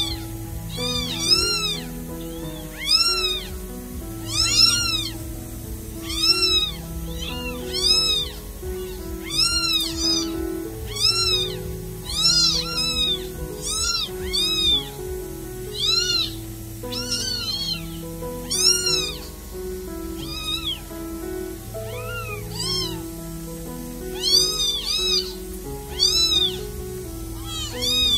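Newborn kittens crying repeatedly, high thin mews that rise and fall, about one to two a second, over soft background music.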